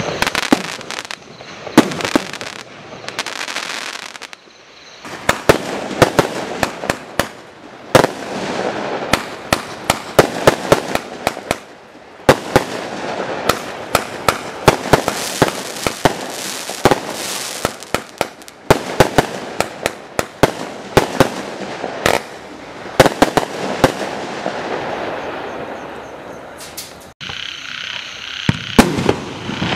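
Primed Pyrotechnics 1.3G firework barrage cakes firing: a dense, irregular run of shots launching and bursting, several a second at times. There is a short lull about four seconds in and a sudden break about 27 seconds in as the next cake starts.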